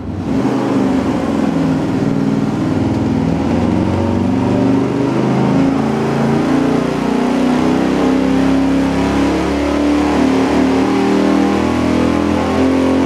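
Stock motorhome Chrysler 440 big-block V8, camshaft retarded to a 107-degree intake centreline, running at full throttle on an engine dyno as its revs climb through a power pull.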